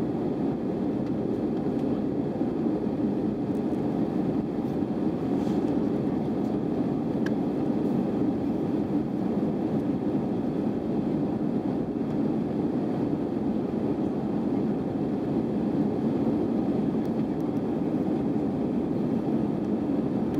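Steady cabin noise inside an Airbus A320 in flight after takeoff: jet engine and airflow noise heard as an even, deep rushing sound.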